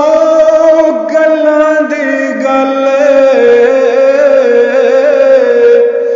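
Music: a voice singing long held notes that change pitch a few times.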